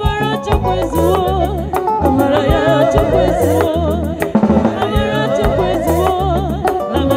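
Live band music: women singing an Igbo song into microphones over a drum kit, keyboard and a low bass line, their held notes wavering with vibrato.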